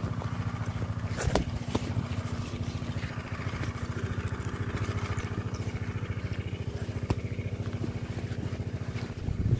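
An engine running steadily with a fast, even throb, with a couple of light knocks a second or two in.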